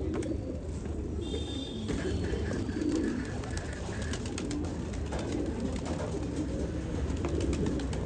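A flock of domestic pigeons cooing continuously in low tones, with scattered light clicks.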